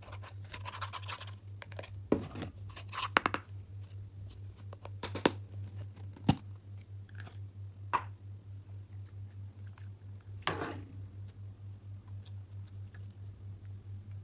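Hands handling a plastic macaron-shaped slime case and its clear slime: scattered sharp clicks and taps as the case is opened and handled, and soft sticky sounds as the slime is pulled and squeezed. A steady low hum runs underneath.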